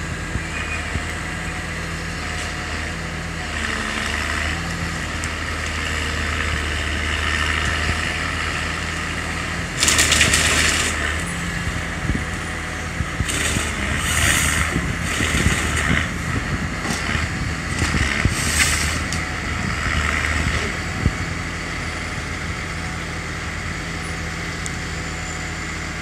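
Forestry harvester's engine running steadily. From about ten seconds in to about twenty seconds, a run of loud cracks and crunches as the harvester head grips and works a log.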